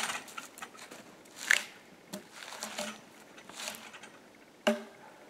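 Footsteps crunching in packed snow, with several sharp knocks of small logs set onto the loaded sleigh, the loudest about a second and a half in and near the end.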